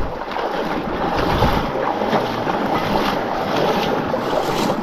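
Steady rushing and splashing of a river as a hiker wades across it knee-deep, the water churning against his legs.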